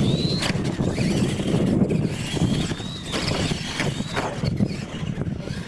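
Radio-controlled monster trucks racing on dirt. Their electric motors whine, rising and falling in pitch several times, with scattered knocks as the trucks bounce and land over ramps, over a steady low rumble.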